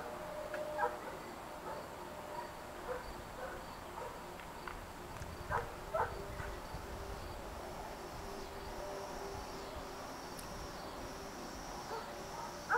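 Insects chirring steadily in the background, with a pulsing high trill running throughout. A few short clicks or knocks stand out, the loudest two about five and a half and six seconds in.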